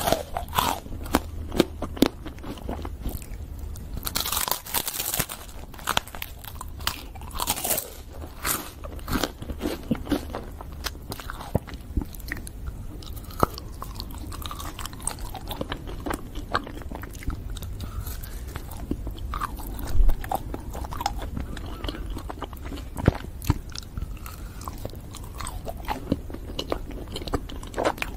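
Biting and chewing frozen desserts: a white-chocolate-coated wafer ice-cream sandwich, then a chocolate-coated ice-cream bar on a stick, the frozen chocolate shell snapping and crunching in irregular bites, the loudest about two-thirds of the way through.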